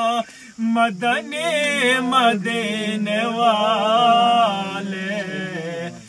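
A male voice singing an Urdu naat without instruments, here a long wordless run of gliding, held notes between sung lines, over a low steady hum.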